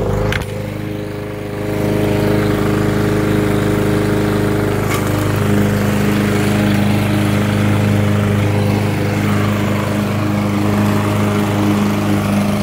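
Craftsman M260 walk-behind lawn mower engine running steadily, having just caught on the pull-start. The level dips briefly at the start, then holds even.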